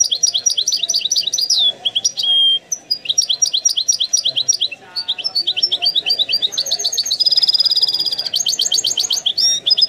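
European goldfinch singing: fast runs of high twittering notes broken by short pauses, with a buzzy trill a little past halfway through.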